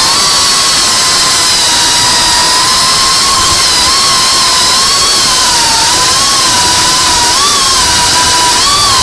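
FPV racing drone's brushless motors and propellers whining at a steady high throttle, heard close from the camera on board, the pitch wavering a little as the drone cruises.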